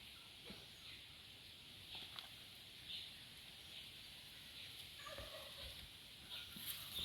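Faint bird calls outdoors: short high calls about once a second, with a lower, longer call about five seconds in.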